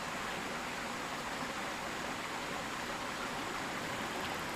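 A steady, even hiss that stays the same throughout, with no distinct events.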